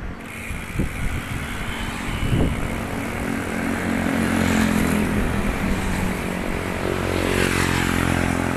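Small motorcycles passing close by on the road, their engines growing louder about two and a half seconds in and loudest around the middle as one goes right past.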